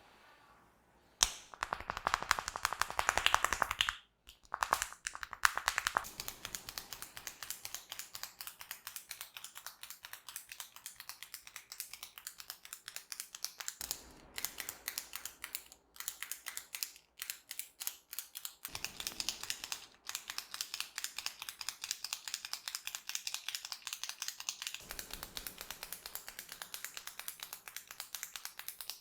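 Hair cracking during a head massage: rapid, dense crackling as locks of hair are twisted and rubbed between the fingers close to the scalp. It starts about a second in and is loudest over the next few seconds, then goes on in runs with brief pauses.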